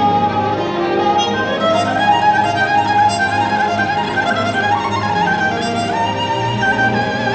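Orchestral music led by a bowed-string melody with sliding, ornamented notes over a held low note, which changes about six seconds in.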